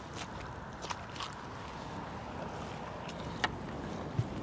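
Steady wind-and-water noise at a reedy riverbank, with a few brief clicks and a soft knock near the end from the landing net being handled at the water's edge.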